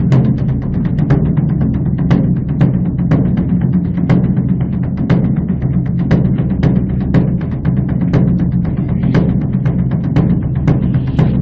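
Beopgo, the large Korean Buddhist dharma drum, beaten with two sticks in a continuous, dense rolling rhythm. Louder strokes stand out now and then over the drum's steady low resonance.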